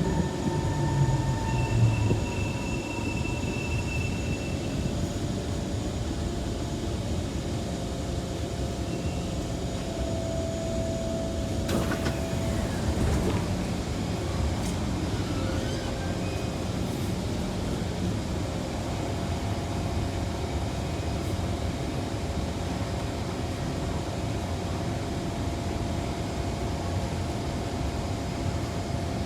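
Kawasaki C151 metro train running through an underground tunnel: a steady rumble of wheels on rail with a faint hum from the motors. A motor tone falls in pitch over the first couple of seconds, and there is a single sharp click about twelve seconds in.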